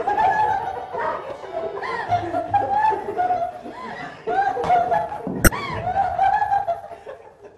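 Several people laughing and chuckling over background music, with one sharp crack about five and a half seconds in.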